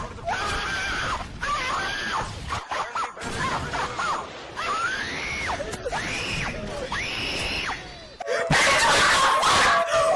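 A run of high-pitched screams or wails, a new one about every second, each rising and then falling. Near the end a much louder, harsher screaming passage cuts in.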